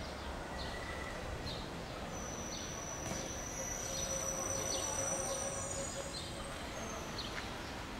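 Outdoor ambience: small birds chirping about once a second over a steady background noise, with a thin high whistle held for a few seconds in the middle.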